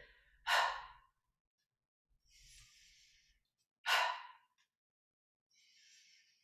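A woman breathing in rhythm with a standing yoga twist: two short, forceful exhalations about three and a half seconds apart, each followed by a fainter, longer inhalation.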